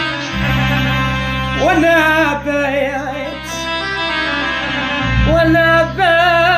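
Arabic lament song: a man sings a wavering, heavily ornamented line over a held instrumental accompaniment with a steady low drone. The voice enters about two seconds in and again near the end.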